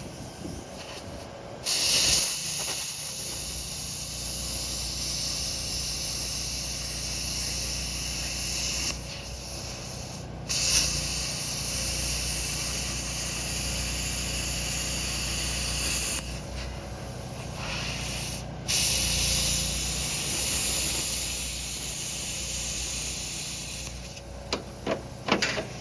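Electric arc welding: the arc hisses and crackles in three long runs of several seconds each, starting and stopping abruptly, as a steel patch is welded into the boiler's water jacket. A steady low hum runs underneath.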